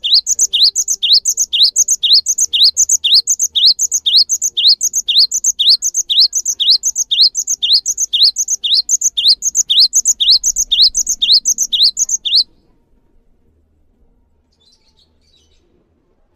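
Cinereous tit (gelatik batu) singing a long run of one repeated rising note, about two a second, for some twelve seconds, then stopping suddenly. A faint brief twitter follows.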